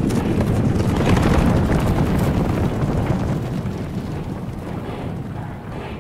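Low, wind-like rumbling noise from the anime episode's soundtrack. It swells over the first second or so, then slowly fades.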